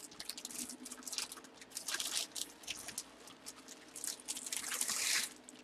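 Wrapping rustling and crinkling in irregular bursts as a signed UFC glove is pulled out of its packaging by hand.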